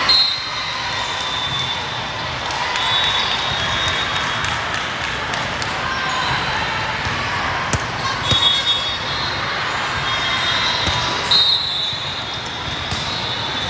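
Volleyball hall din: steady crowd chatter echoing in the large hall, a volleyball being served and struck, and short referee whistle blasts about four times.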